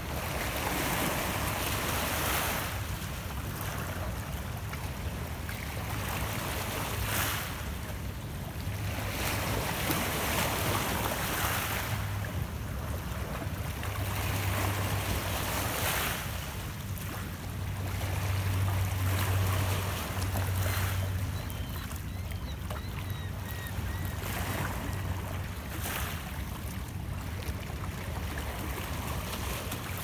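Small Lake Ontario waves lapping and splashing against shoreline rocks in surges every couple of seconds, with wind on the microphone and a low steady rumble underneath.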